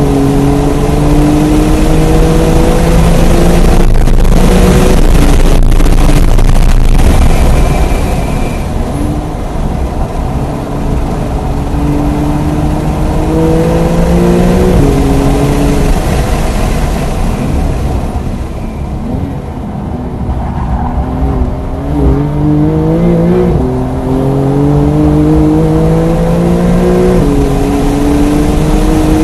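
Porsche 992 Carrera S twin-turbo flat-six pulling hard through the gears on track, heard from inside the cabin: the engine note climbs steadily, then drops sharply at each upshift, with a dip as the car slows for a corner midway. Road and wind noise run underneath.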